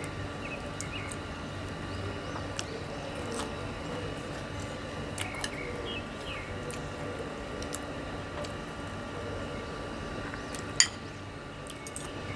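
Eating raw oysters at close range: soft wet squishing chewing, with scattered light clinks and one sharp click near the end.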